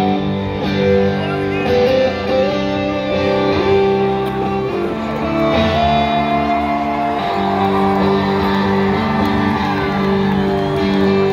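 Live band playing through a PA: electric guitars holding long, bending notes over bass and drums.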